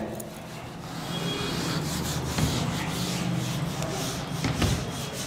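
Handheld whiteboard eraser rubbing back and forth across a whiteboard, wiping off marker writing: a dry scrubbing sound in quick repeated strokes.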